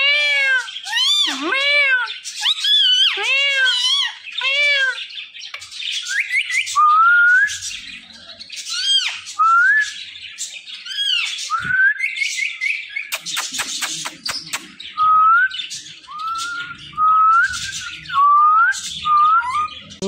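Indian ringneck parakeet calling: about five seconds of repeated arched, harsh calls, then a string of short rising whistled notes broken by brief screeches and a quick chatter.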